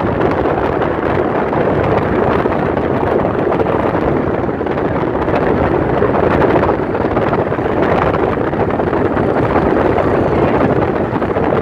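Steady rush of wind and road noise inside a car driving at speed, with wind buffeting the microphone.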